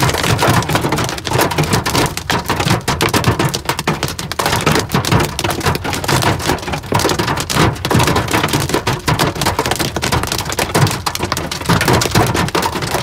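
Hail and rain pelting the car's roof and windshield, heard from inside the cabin: a dense, continuous clatter of impacts.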